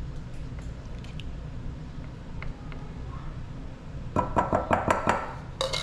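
Low steady kitchen hum with a few faint ticks. About four seconds in comes a quick run of knocks, clinks and scrapes as a silicone spatula and a cup work against a glass mixing bowl.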